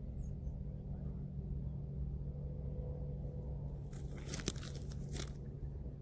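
Crunching and rustling, a few short sharp bursts between about four and five seconds in, over a steady low rumble.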